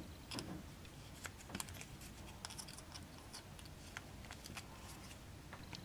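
Flush side cutters snipping the trimmed component leads off the solder side of a small circuit board: a series of faint, sharp clicks, irregularly spaced.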